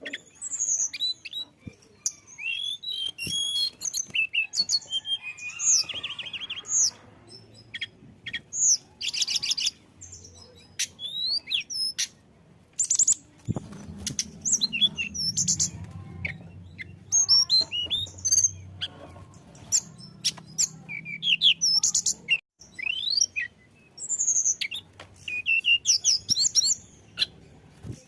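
Tledekan gunung singing: a fast, varied run of high-pitched chirps, trills and quick gliding whistles, delivered in bursts with short pauses between.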